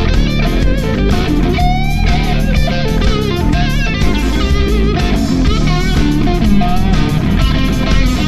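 Live rock instrumental: an electric guitar plays a lead with wavering, bending notes over electric bass and a drum kit.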